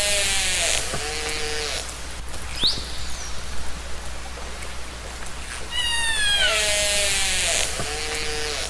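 Killer whale (orca) calls: long calls that fall in pitch, each followed a couple of seconds later by a short rising whistle, repeating about every seven seconds over a steady hiss.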